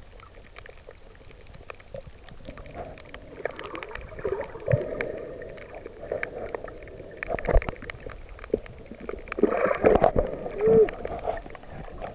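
Muffled underwater sound from a submerged camera: gurgling, bubbling water with scattered clicks, and a few muffled wavering tones in the second half.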